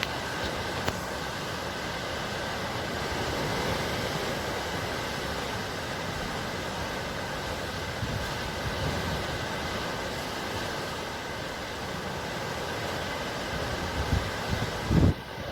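Steady rushing noise of the sea, with a faint steady hum running through it and a few low thumps of wind buffeting the microphone near the end.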